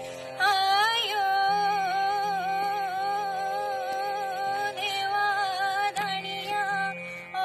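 A voice singing long, held notes with a wavering vibrato over a steady accompanying drone. One long phrase begins about half a second in and a second phrase about five seconds in.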